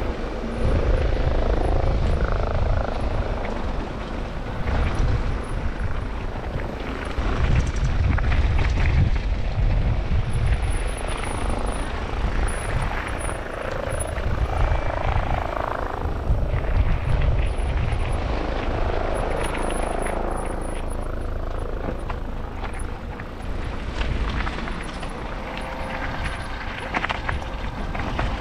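Wind buffeting the microphone on a fast mountain bike descent, with the tyres rumbling and rattling over the trail, rising and falling as the ride goes.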